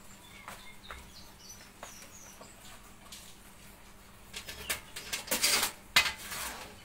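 Rustling and crinkling of a plastic packet in several noisy bursts over the last two and a half seconds, with a sharp click about six seconds in.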